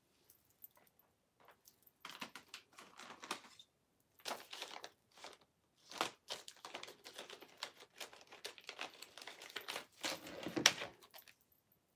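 Clear plastic packaging crinkling and rustling in fits and starts as it is handled on a tabletop, with a louder thump near the end.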